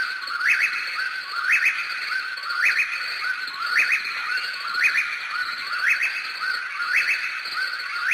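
A bird calling, repeating the same short rising phrase about once a second over a steady, high background chorus.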